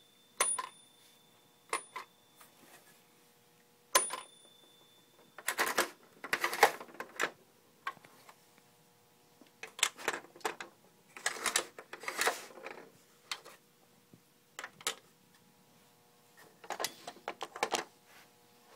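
Small toy pieces of a vintage Playskool McDonald's playset being handled: single sharp clicks, then several short bursts of clicking and clattering as the pieces are moved about and knocked together.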